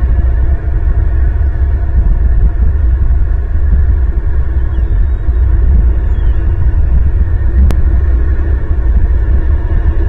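Loud, steady low rumble with a faint steady hum above it, picked up by an outdoor nest-camera microphone. A single sharp click comes about three quarters of the way through.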